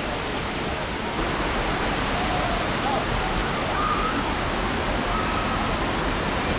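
Waterfall's steady rush of falling water, growing a little louder about a second in, with faint distant voices underneath.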